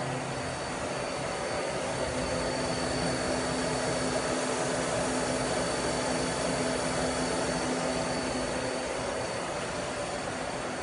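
Akira Seiki Performa V4 CNC vertical machining center running, its spindle turning at moderate speed: a steady mechanical hum with a thin, high, steady tone over it. The seller says the spindle is in very good condition.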